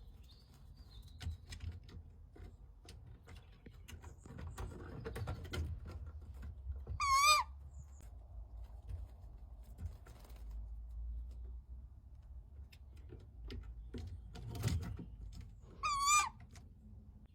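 Pet owl giving two short wavering calls, about nine seconds apart, amid soft clicks and rustling.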